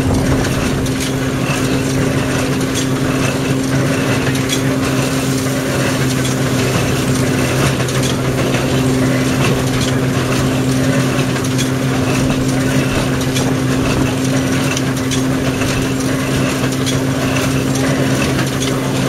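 Ransomes threshing machine working with a Jones baler: a steady machine hum over a continuous rattle of small knocks and clatter.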